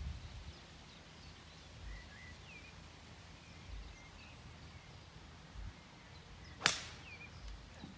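A golf iron striking the ball on a tee shot: one sharp click near the end. Faint bird chirps in the background.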